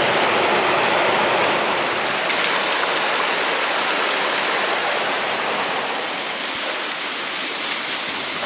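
A steady rushing noise, easing off a little toward the end.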